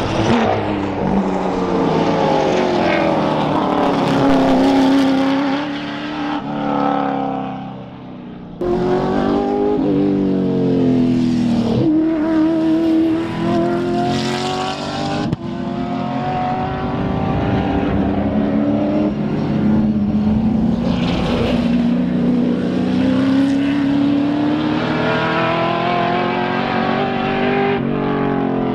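Race sedan engines at full throttle on track, several cars at once, their pitch climbing and dropping sharply again and again through gear changes and off-throttle moments.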